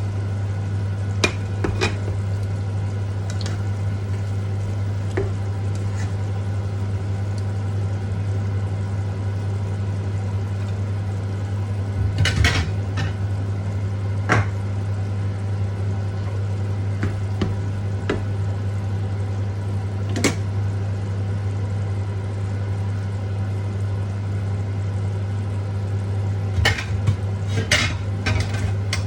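Food sizzling in a frying pan, with scattered sharp clicks and scrapes of a utensil stirring against the pan, a small cluster about halfway through and more near the end. A steady low hum runs under it all.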